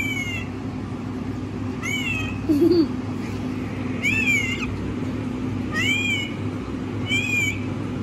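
Rose-ringed parakeet calls: five short chirps, each rising then falling in pitch, one about every one and a half to two seconds, over a steady low hum.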